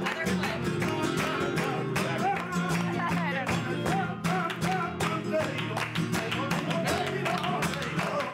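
Live flamenco music: acoustic flamenco guitar strummed in sharp rhythmic strokes, with a male singer's wavering, ornamented melody over it and hands clapping along.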